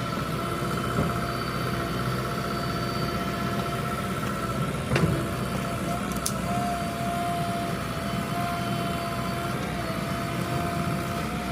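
Heavy construction machinery engine running steadily, with a high steady whine over a low rumble. A single sharp knock about five seconds in.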